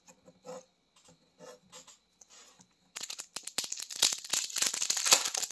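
Wrapper of an Upper Deck hockey card pack crinkling as it is torn open, a dense crackle that starts about three seconds in; before that, only faint scattered rustles.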